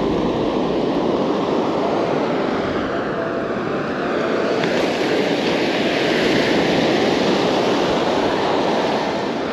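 Ocean surf breaking and washing up a sand beach: a steady rushing hiss that swells a little midway.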